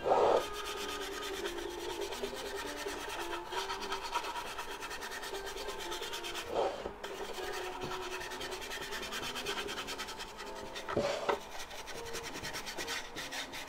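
A stiff-bristled flat paintbrush dry-brushing black paint across a wooden MDF box, the bristles scratching rapidly back and forth over the wood to add texture and shading. A few louder bumps come near the start, about six and a half seconds in and about eleven seconds in.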